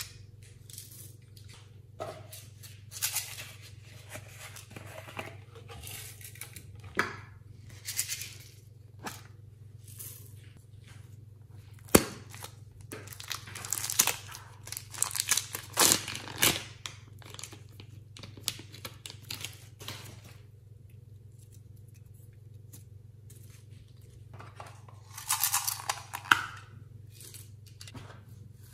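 Hands handling small plastic cases and a plastic piping bag of clay: scattered clicks and rustles, one sharp click about twelve seconds in, then a stretch of crinkling as the bag is squeezed, and another crinkle near the end.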